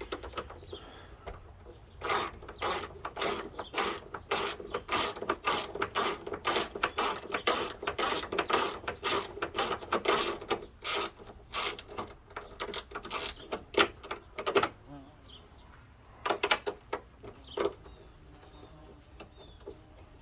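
Socket ratchet clicking in a quick, even run of about three clicks a second as hood latch mounting bolts are snugged down, then a few scattered clicks near the end.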